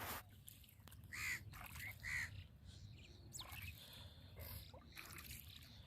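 A bird calling outdoors: three short calls in quick succession a little over a second in, over faint background noise, with a brief noise burst at the very start.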